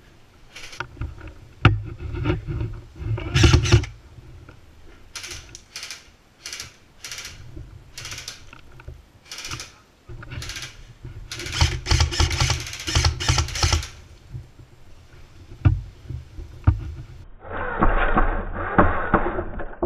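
Footsteps and scuffs on a floor strewn with rubble and peeling plaster, with gear knocking, as a player moves through a derelict corridor; a denser run of knocks comes a little past the middle.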